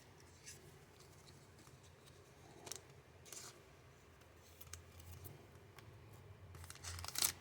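Trading cards being handled and slid through the hands: faint scattered clicks and rustles, with louder crinkling of a pack wrapper near the end.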